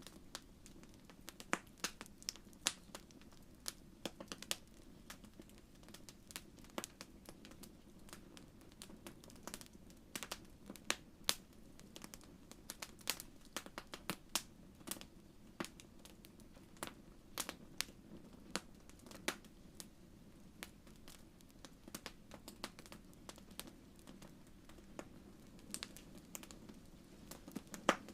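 Wood fire in a fireplace crackling: irregular sharp pops and snaps, a few each second and varying in loudness, over a low steady rumble.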